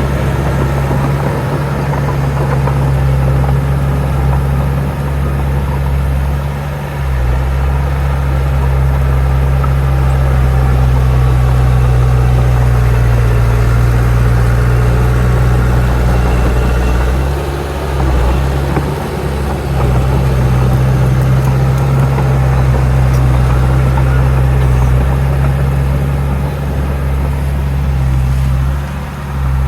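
Heavy earthmoving machine's diesel engine running with a steady low drone, dipping briefly a few times.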